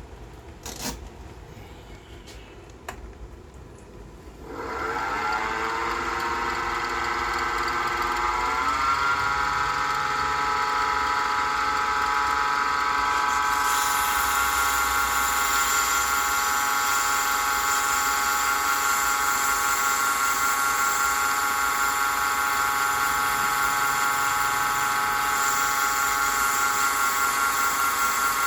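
A few light clicks, then about four and a half seconds in an electric wood lathe starts, its motor whine rising in pitch for about four seconds as it spins up to speed before running steadily. From about halfway a steady hiss joins the whine.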